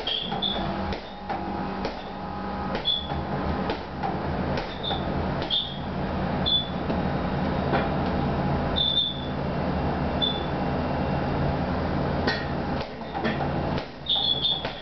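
Gloved punches landing on a chain-hung heavy punching bag: irregular thuds, with the suspension chains jingling briefly after several blows. A steady low hum runs underneath.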